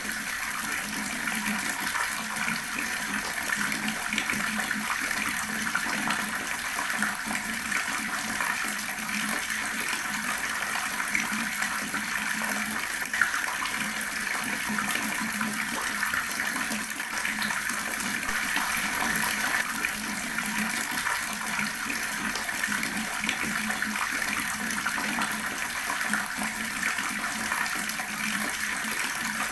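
Water running steadily from a tap, splashing without a break, with one brief click about halfway through.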